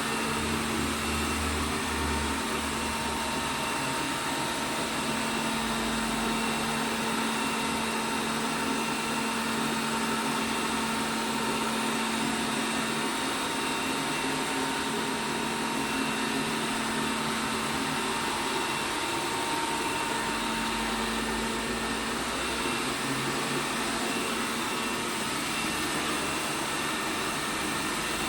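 ELARI SmartBot Lite SBT-002A robot vacuum cleaner running steadily, its suction motor giving a constant whirring hum.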